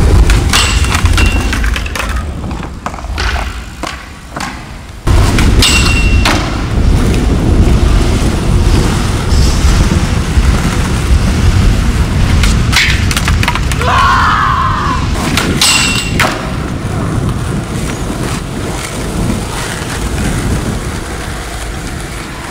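Skateboard wheels rolling over rough asphalt, a steady low rumble, with a few sharp clicks and knocks from the board along the way.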